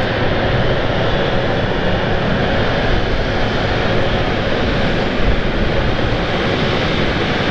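Qatar Airways Boeing 777's twin GE90 turbofans running at taxi power as the jet rolls past: a steady jet rush with a faint high whine.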